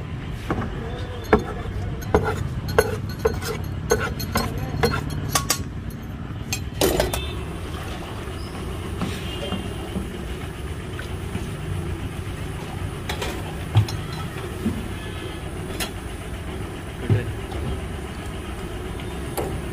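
Cooking-utensil clatter over a steady low rumble of street traffic. Irregular sharp taps come thick in the first seven seconds, then only a few single clinks, like a steel ladle against an iron wok.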